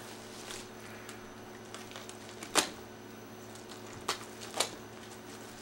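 Box cutter working through the electrician's tape sealing a package: faint scratching with three short sharp clicks, the loudest about halfway through and two more about a second and a half later.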